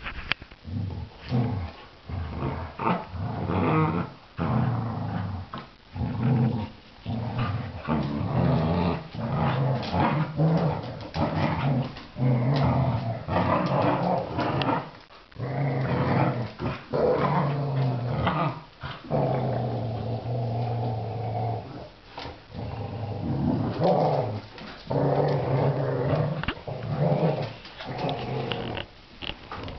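Dogs growling in long, drawn-out stretches of one to three seconds, one after another with short breaks, a back-and-forth vocal exchange between two dogs.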